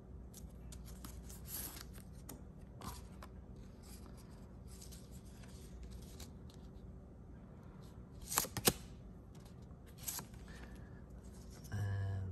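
Plastic film cards and their card sleeves being handled: soft rustling and light clicks as the cards are slid out and shuffled, with two sharper clicks about eight seconds in and a brief low hum near the end.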